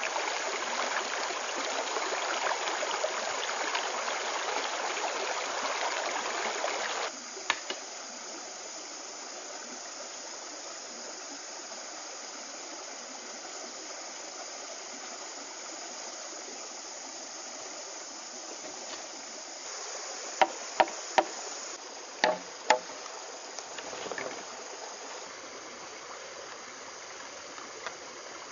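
Stream water running over rocks, loud at first, then after a sudden change about seven seconds in, quieter and steady. A handful of sharp knocks come about two-thirds of the way through.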